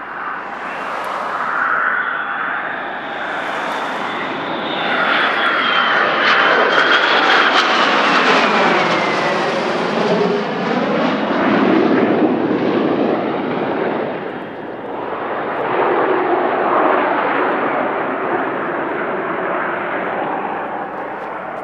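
Lockheed Martin F-22 Raptor's twin Pratt & Whitney F119 turbofan engines flying past overhead: loud jet noise that swells and fades, with a high whine that falls in pitch as the jet goes by about halfway through.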